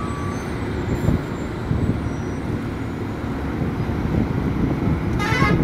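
Heavy loaded lorries' diesel engines and tyres passing on a mountain road, a dense, steady low rumble. A brief shrill pulsing sound comes near the end.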